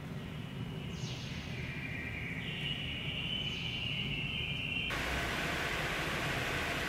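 High-pitched ringing tones from the rails of a Shinkansen line as a train approaches, stepping up in pitch with two brief falling sweeps. About five seconds in the sound cuts sharply to a steady, loud hiss of heavy rain.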